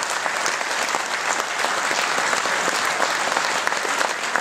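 Audience applauding steadily: many hands clapping at once in a large room.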